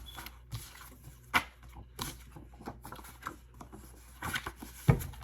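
Cards being shuffled and handled: irregular clicks and light rustling, with the sharpest snap near the end.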